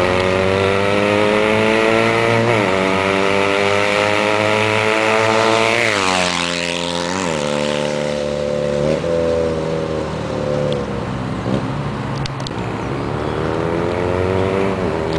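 Motorcycle with an aftermarket Roncar aluminium exhaust accelerating through the gears. The engine note climbs in pitch and dips briefly at gear changes about 2.5, 6 and 7 seconds in, then eases off and fades before building again near the end.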